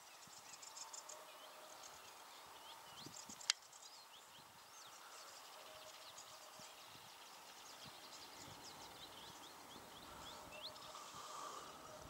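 Faint chirping of many small wild birds, with one sharp click about three and a half seconds in.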